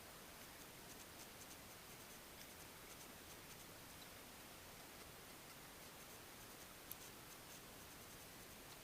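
Near silence: a faint steady hiss with scattered tiny clicks, and one sharper click about seven seconds in.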